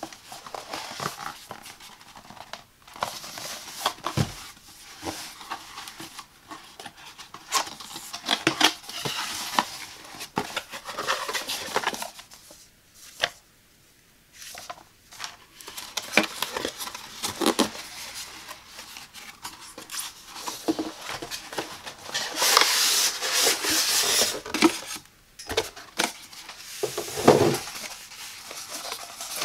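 Hands unboxing packaging: a cardboard box tapped, turned and its flaps opened, a paper manual rustling, and a styrofoam packing block being worked out of the box, with many taps, scrapes and crinkles. A long scraping rustle comes about two-thirds through.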